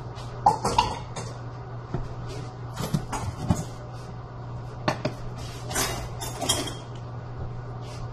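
Irregular clinks and knocks of cookware: a wooden spoon stirring in a metal stockpot, then a glass lid being set on the pot and adjusted by its knob. A steady low hum runs underneath.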